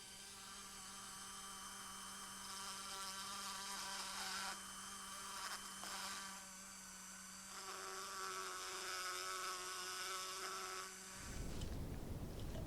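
Dremel rotary tool with a diamond burr grinding down old rivets in a toolbox latch: a steady high-pitched whine whose tone shifts a few times as the burr works. The whine stops about eleven seconds in.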